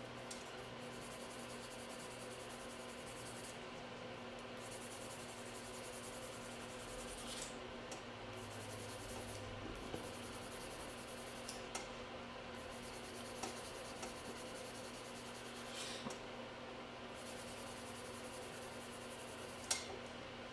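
Light scraping and rubbing of a manicure tool on fingernails, in short spells, with a few small clicks of tools, over a steady low hum.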